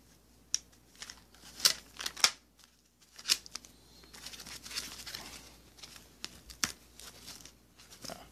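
Parcel packaging of white foam sheet and plastic being pulled open and unwrapped by hand, crinkling and tearing. A few sharp crackling snaps come in the first three seconds or so and one more near seven seconds, with softer rustling in between.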